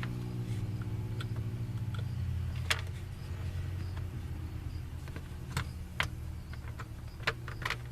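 A few sharp clicks from hand work on a truck's door panel, over a steady low hum.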